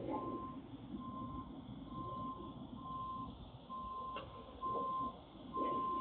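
An electronic alarm beeping: a single steady tone about once a second, repeating evenly, over a low rumble, with a sharp click about four seconds in.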